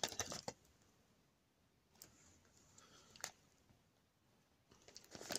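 Faint handling noise: a few sharp clicks and taps as a plastic alarm-lock housing and a cigarette pack are held and moved together. The clicks come at the start, twice around the middle and again in a cluster near the end, with a soft rustle in between.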